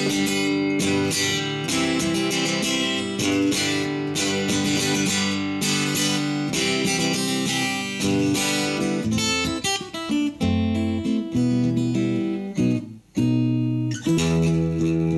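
Acoustic guitar playing the song's instrumental ending alone, chords strummed and picked, with a brief pause about thirteen seconds in before it goes on.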